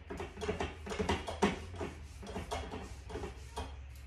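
Metal tongs pushing a paper towel across the hot plate of an electric grill-and-griddle, a run of short scraping and rubbing strokes that clean off cooked-on crust, over a steady low hum.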